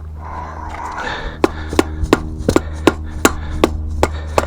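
Steel tire irons clicking and knocking against a dirt bike's wheel rim while levering the last of the tire bead on. About a second and a half in a quick series of sharp metallic taps begins, roughly three a second, each with a brief ring, over a steady low hum.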